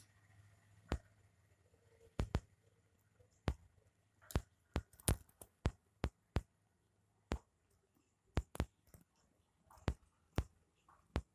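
Kitten crunching dry kibble: sharp, irregular crunches, sometimes in quick pairs, with short pauses between them.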